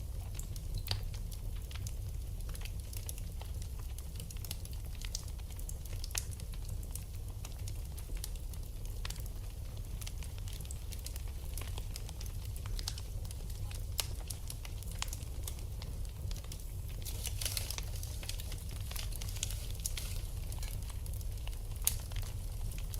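Wood fire burning in a fireplace, crackling with scattered irregular pops over a steady low rumble. A denser run of crackles comes about two-thirds of the way in, and a sharper pop near the end.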